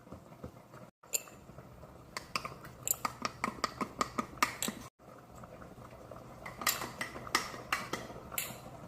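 A utensil stirring cake batter in a mug, clinking repeatedly against the mug's sides in quick, irregular clicks.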